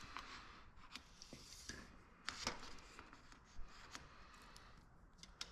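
Faint hand-work sounds of measuring and marking: light scratching and a few soft clicks and ticks, the clearest about two and a half seconds in, over a low hiss.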